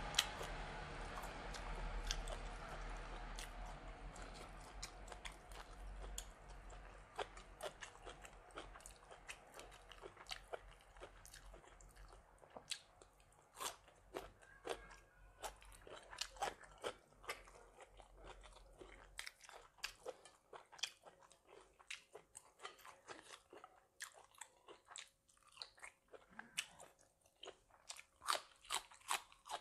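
A person chewing and crunching food close to the microphone, with many short, wet clicks of the mouth: bites of blanched beef and, near the end, crisp raw spring onion.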